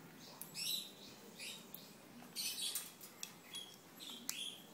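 Moluccan cockatoo biting and working a red chilli in its beak: a run of short, irregular crackling sounds, some with a brief squeaky tone.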